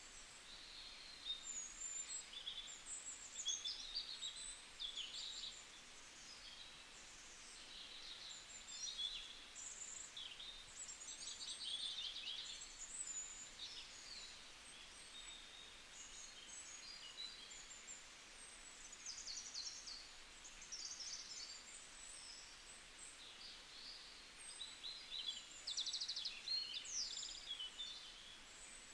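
Birds chirping and singing in the background: many short, high, quick chirps and trills, coming and going throughout, over a faint steady hiss.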